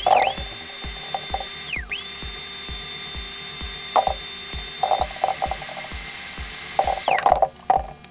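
A small high-speed electric motor whining: it spins up to a steady high pitch, drops and spins up again about two seconds in, rises a step about five seconds in, and winds down near the end. Background music with a steady beat runs underneath.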